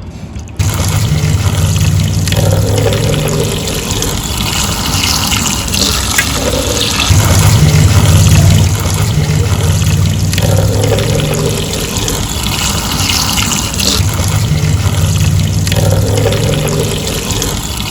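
Running water splashing while toy vehicles are washed, with a low hum that starts and stops several times.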